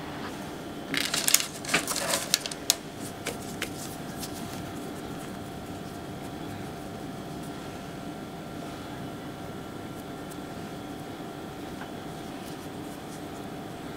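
Kitchen handling noise: a short cluster of crinkly clicks and taps from about a second in to about three and a half seconds in, then only a steady faint hum of room tone.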